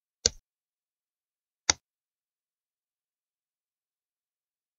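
Two sharp computer mouse clicks, about a second and a half apart.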